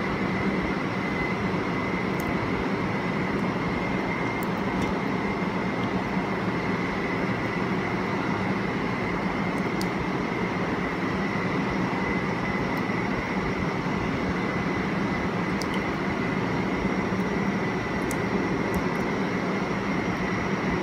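Steady whirring of a fan motor, with a low hum and a faint high whine that stay constant throughout, and a few faint ticks scattered over it.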